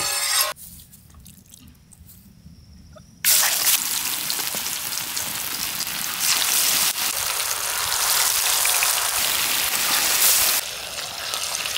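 Marinated streaked Spanish mackerel slices frying in hot sesame oil on a large flat iron pan. The sizzle starts suddenly about three seconds in as slices go into the oil, runs on loudly, and eases a little near the end.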